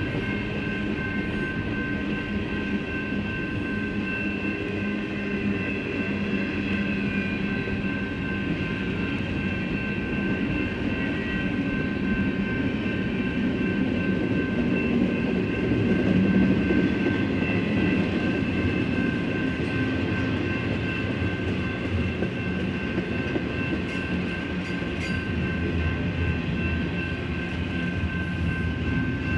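Double-stack intermodal container cars of a BNSF freight train rolling past: a steady rumble of steel wheels on the rails, with a steady high ringing over it, a little louder about halfway through.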